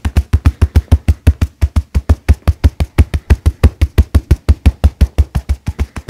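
Hands beating rapidly on a person's back through a shirt in a percussion massage (tapotement): a fast, even drumming of dull, deep thuds, about eight a second.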